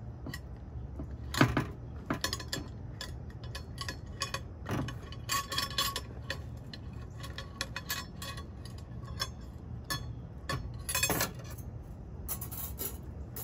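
Stainless steel wire trivet rack clinking and knocking against a ceramic plate as the cooked spaghetti squash halves are worked off it. Irregular light clinks, the loudest about a second and a half in and again near eleven seconds.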